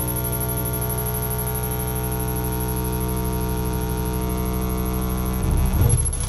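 Live electronic noise music from a tabletop rig of mixer, effects pedals and modules: a steady drone with many overtones, with a thin high whistle above it. Near the end the drone breaks up into shifting, sweeping sounds.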